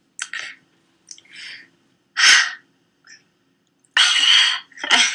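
A woman's breathy sniffs and gasps as she chokes up with emotion mid-sentence: a sharp sniff about two seconds in and a quick run of shaky breaths near the end.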